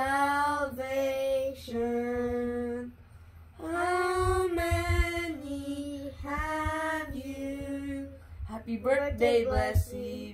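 Children singing a birthday song together without accompaniment, holding long notes on the word 'salvation'. The song ends about eight seconds in and gives way to short bits of chatter.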